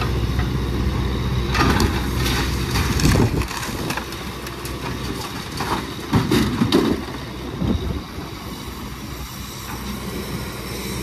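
A vehicle engine running steadily, with louder bursts of noise about two seconds in and again about six seconds in.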